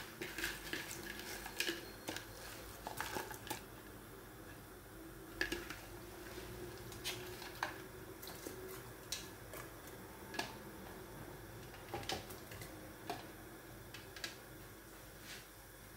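Washed crayfish being squeezed by hand out of a plastic bag into a pot of water, with the bag crinkling and scattered light clicks and taps.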